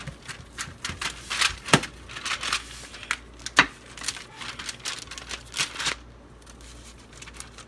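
Hands pressing and patting raw sausage meat flat on parchment paper: irregular crinkles, taps and soft slaps that die down about six seconds in.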